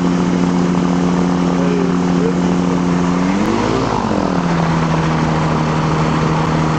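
Microlight trike's engine and propeller running steadily at low revs on the ground. About halfway through, the pitch briefly swings up and back down, settling slightly lower.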